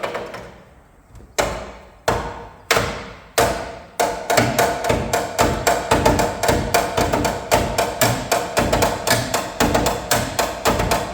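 Background music with a percussive beat: spaced hits at first, then a fast, steady rhythm from about four seconds in.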